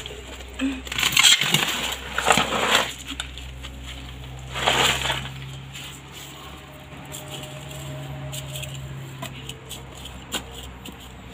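Hands digging and scraping through gritty soil mixed with small stones in a shallow planter tray: rough scraping and rustling in bursts about a second in, around two seconds and near five seconds, then only faint scratches and small clicks over a steady low hum.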